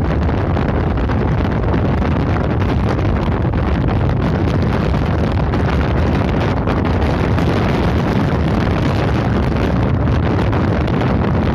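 Steady, loud wind rush buffeting the microphone of a camera riding on a moving bike, with low road rumble beneath.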